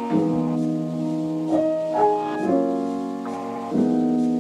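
Slow background piano music, held chords with a new note or chord struck every second or so.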